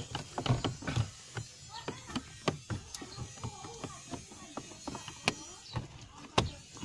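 Irregular plastic clicks and knocks of a car's cabin air filter cover being handled and pressed back into its housing behind the glovebox.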